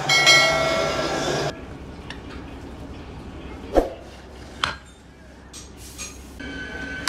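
A short bright jingle opens. Then a hammer strikes scrap cast-iron brake drums: two sharp metallic clangs with a short ring, the first the loudest, and lighter knocks after.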